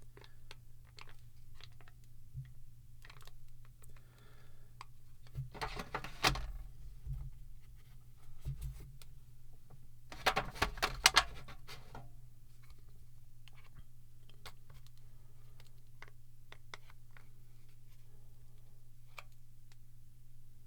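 A plastic ink cartridge being handled and pried at: scattered small clicks and taps, with two louder clusters of crackling clicks and scraping about six seconds in and again around ten to eleven seconds, lighter ticks after that. A low steady hum runs underneath.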